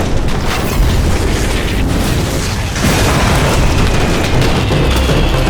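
A large mass of fireworks going off together: a dense, continuous barrage of rapid bangs and pops with deep booms.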